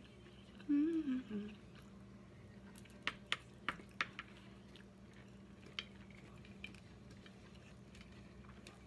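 Person eating with chopsticks: a short hummed 'mm' about a second in, then a quick run of five sharp clicks and crunches a little past the three-second mark, with faint chewing over a steady low hum.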